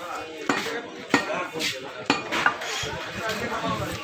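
Meat cleaver chopping beef on a wooden stump chopping block: about five sharp chops in the first two and a half seconds, roughly half a second apart, with a short metallic ring.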